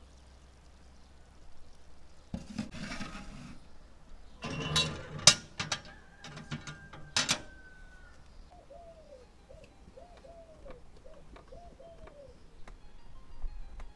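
Metal pan scraping and clanking into the oven of a rusty iron wood-burning stove and the oven door banging shut: a scrape, then a rattle with several sharp metal clanks over about three seconds in the middle. Afterwards a bird calls several times in short arched notes.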